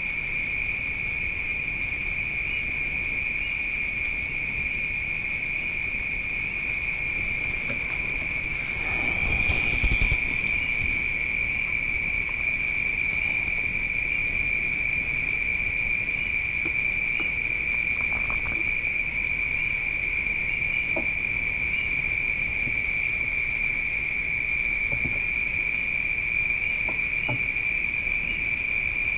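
Night insects trilling steadily at a high pitch, with a brief low rumble about ten seconds in.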